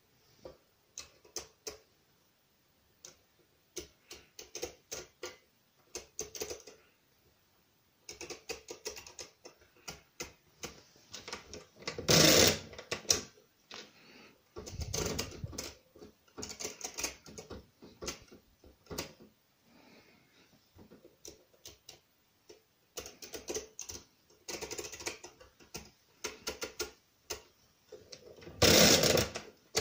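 Brunsviga pinwheel mechanical calculator worked by hand: clusters of sharp clicks as the setting levers and mechanism are moved, and two louder clattering runs of about a second each, about twelve seconds in and near the end, as the crank is turned and the result register steps on.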